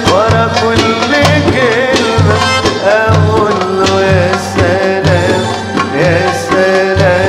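Live Egyptian band playing belly-dance music: darbuka and frame-drum strokes keep a steady rhythm under an accordion melody that bends and slides in pitch.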